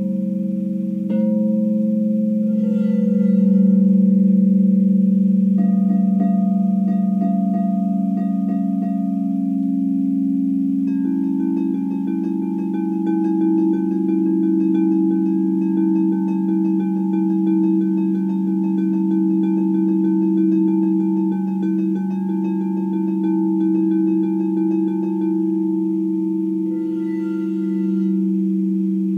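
Frosted quartz crystal singing bowls ringing together in several steady, overlapping tones, struck with a soft mallet. Fresh strikes add new tones near the start and near the end, and a long stretch of quick, light repeated strokes runs through the middle.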